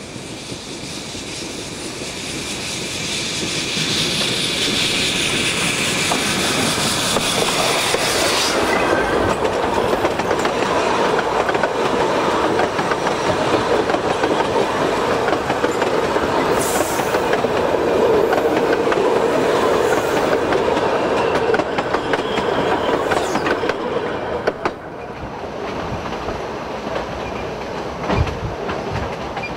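Puffing Billy narrow-gauge steam train passing close by: the sound builds over the first few seconds with a high hiss that stops sharply about eight seconds in, then the carriages run past with a steady rumbling clatter on the rails. About 25 seconds in it drops suddenly to a quieter, steady train running.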